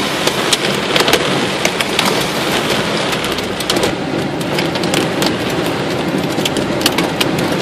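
Heavy rain pelting a car's roof and windshield, heard from inside the car: a dense steady hiss dotted with many sharp, irregular hits of drops striking the glass and metal.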